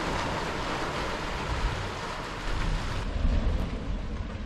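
Dragon's Mouth Spring, a hot spring in a cave: water churning and sloshing in the steaming cave mouth, a steady rushing like surf over a deep low rumble.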